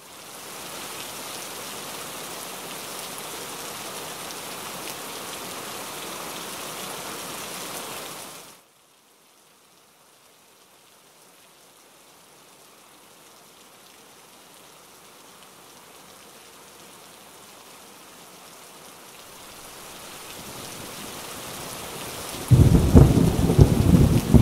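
Steady rain that cuts off abruptly about eight seconds in. The rain then fades back in gradually, and near the end a loud, deep rumble of thunder breaks in.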